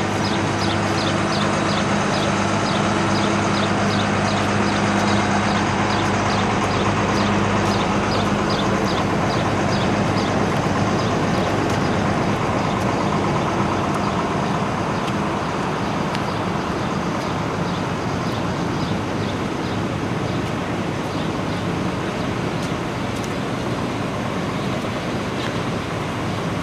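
Fire trucks' engines running at idle: a steady rumble with a low hum that eases about halfway through, and a run of quick high ticks in the first half.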